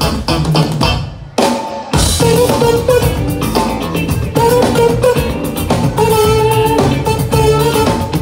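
Live band playing: bass guitar, drums, keyboards and guitar. The music drops out briefly about a second in, then comes back in with held lead notes over the rhythm section.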